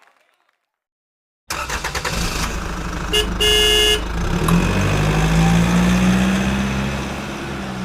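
A motor vehicle engine running steadily, with a short horn honk lasting about a second, roughly three seconds in. The engine sound starts abruptly after a second and a half of silence.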